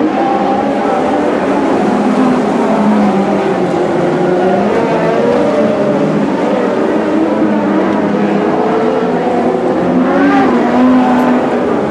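Lightning Sprint race cars running at racing speed on a dirt speedway, several engines revving together, their pitch rising and falling as they throttle through the turns.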